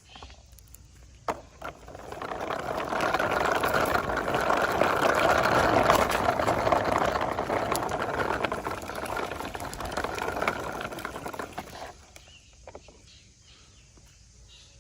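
Toy quad bike pushed along by hand, its wheels rolling with a crackling, rustling noise that swells, holds for several seconds, then dies away well before the end.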